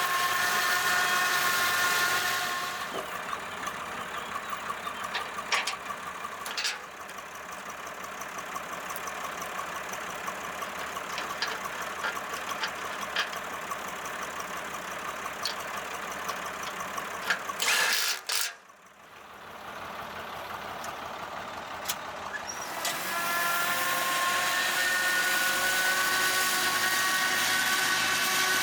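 Tractor-driven flail mulcher running: a steady whine at first, then a quieter stretch with scattered clicks and knocks. After a brief loud burst and a sudden drop, the whine rises back up and holds.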